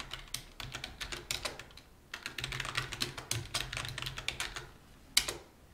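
Typing on a computer keyboard: two runs of rapid keystrokes with a short pause between them, then one louder single keystroke near the end.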